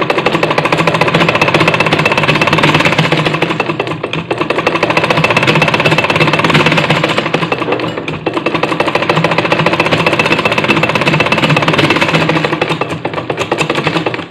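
Firdaus sewing machine stitching a straight seam through a sheet of paper: a rapid, even clatter of needle strokes. It eases off briefly twice and stops at the end.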